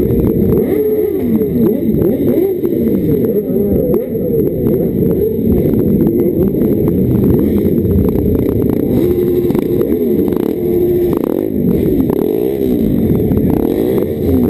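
Motorcycle engines running at low speed and being blipped, their pitch rising and falling again and again, heard muffled.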